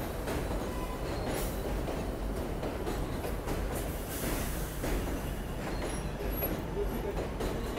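R188 subway cars of a 7 train rolling past on elevated track: a steady rumble of wheels on rail with scattered clicks over the rail joints and a few faint, brief wheel squeals.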